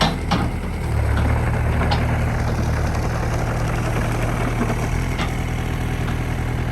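Engine idling steadily: a low, even drone, with a couple of sharp clicks right at the start.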